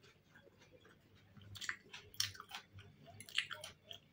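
Soft, wet chewing and mouth smacks of someone eating boiled dumplings, scattered and irregular, starting about a second and a half in.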